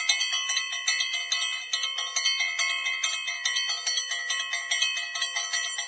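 Bell-like ringing struck over and over in quick succession, about five strikes a second, several high tones sounding together.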